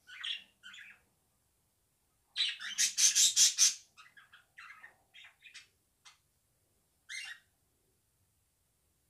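Pet budgies calling in short chirps, with a loud run of rapid chattering calls about two and a half seconds in, then scattered quieter single chirps.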